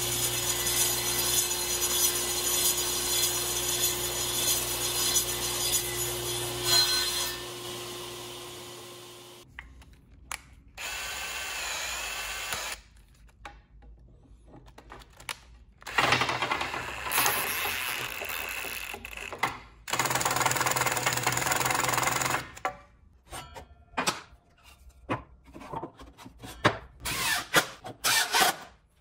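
Table saw running while square stock is turned round into a dowel in a jig over the blade, then the blade spinning down. Afterwards a cordless drill runs several times, ending in a string of short bursts as it drives screws into the plywood jig.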